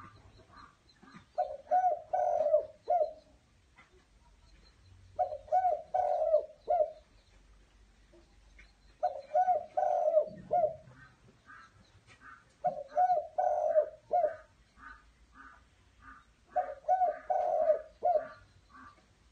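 Caged Malay dove cooing: five phrases of quick, repeated coo notes, one about every four seconds, with faint higher chirps between them.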